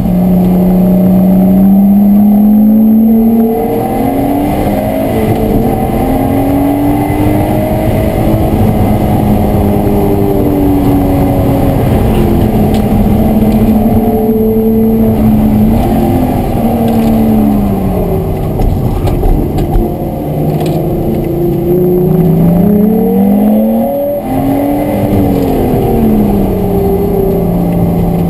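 Lotus Exige S's supercharged 3.5-litre V6 heard from inside the cabin under hard driving, its engine note climbing and falling through the revs as it accelerates, shifts and slows for corners. About two-thirds of the way through the revs drop low, then rise sharply and fall back again.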